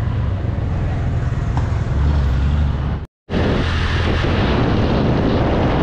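Road noise of a moving car heard from inside the cab: a steady low engine and tyre rumble with a hiss of traffic and air over it. The sound drops out completely for a moment about three seconds in, then comes back with more hiss.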